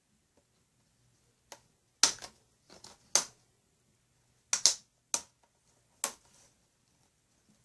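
Plastic snap-fit clips of a laptop's screen bezel popping loose as it is pried off by hand: a series of sharp plastic snaps, several in quick pairs.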